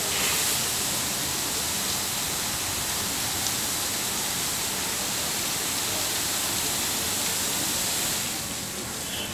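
Water jets of an automatic car-wash tunnel spraying over a car: a steady rushing hiss of spray that eases off about eight seconds in.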